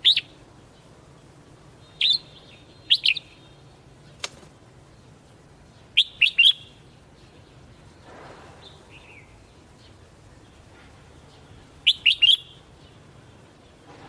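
Red-whiskered bulbul calling in short bursts of sharp, clear notes, with quick three-note phrases about six and twelve seconds in. A single sharp click sounds about four seconds in.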